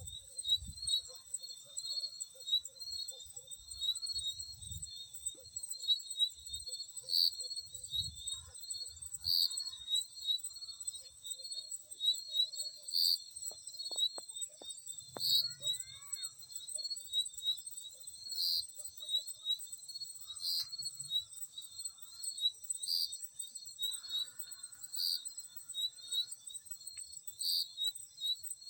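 Field crickets chirping continuously at a high pitch, with one louder chirp standing out about every two seconds, and faint low rumbles underneath.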